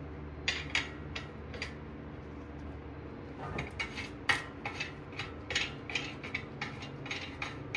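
Light metallic clinks and taps, irregular and short, of a new brake rotor being flipped around and refitted on the wheel hub studs, over a faint steady low hum.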